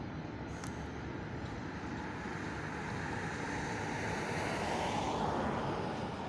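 TGV high-speed trains rolling along the tracks: a steady rumble of wheels on rail that swells to a peak about five seconds in and then eases.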